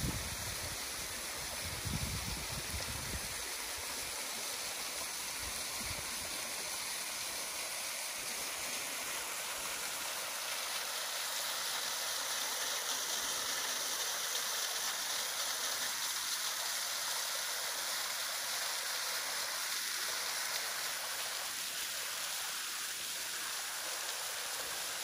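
Small waterfall, thin streams of water falling down a rock face and splashing into a pool: a steady hiss of falling water. A few low thumps in the first few seconds.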